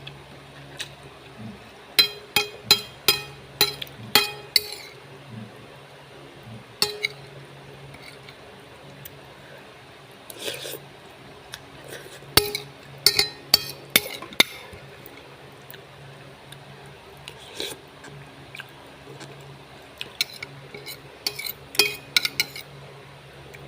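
A spoon or other eating utensil clinking against a bowl in three quick runs of sharp taps, with a steady low hum underneath.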